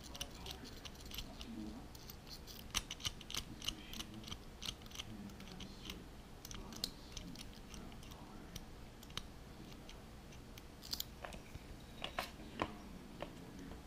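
Faint, irregular clicking of a Master Lock M175 combination padlock's number dials being turned by hand to set them all to zero.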